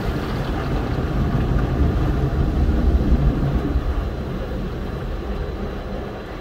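Car wash rinse water spraying over a van, heard from inside the cabin as a steady rushing noise with a deep rumble. It swells about two to three seconds in and eases off after four seconds.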